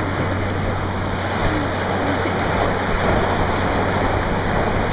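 Steady rush of water and wind as an inflatable float is towed at speed across a boat's wake, with a low steady hum underneath.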